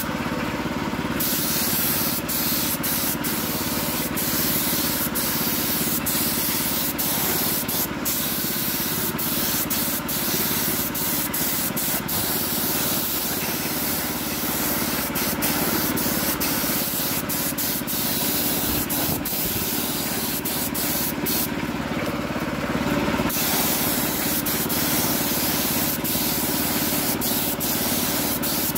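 Paint being sprayed onto a motorcycle wheel: a steady hiss of spraying. The highest part of the hiss drops away briefly near the start and again about two-thirds of the way through.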